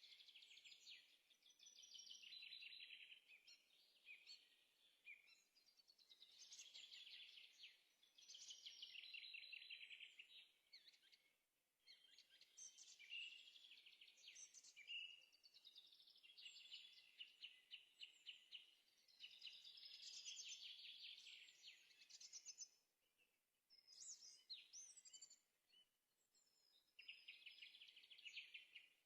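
Faint birdsong: high-pitched trilled phrases a few seconds long, repeated with short pauses between them.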